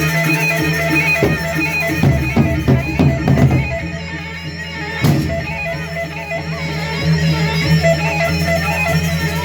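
Traditional Indonesian percussion ensemble playing a tabuh: ringing metal pitched percussion holds steady tones. A quick run of strokes comes in the first few seconds, and one sharp strike lands about five seconds in.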